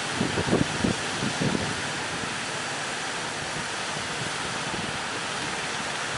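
Steady rushing noise of strong wind and surf, with low gusts of wind buffeting the microphone in the first second and a half.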